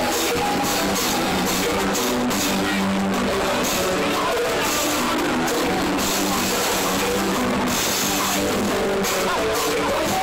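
Live band playing steadily loud: drum kit and electric guitar with a singer on microphone.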